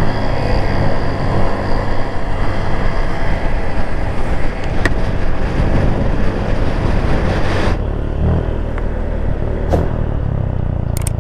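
A Honda Click scooter being ridden, its engine running under loud wind noise on the microphone. The hiss drops off sharply about eight seconds in.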